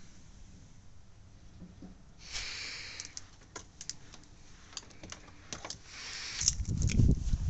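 Battery charger crocodile clips and cables being handled, giving a run of sharp clicks and rustling that starts about two seconds in. A dull low rumbling bump, louder than the clicks, comes near the end.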